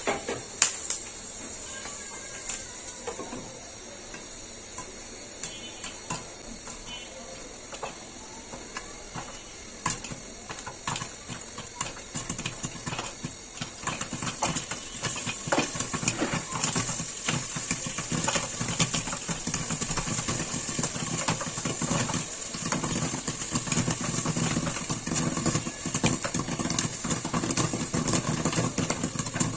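Popcorn kernels sizzling in hot oil in a pan, with sharp pops that are few at first and come thicker and louder through the second half as the kernels begin to burst.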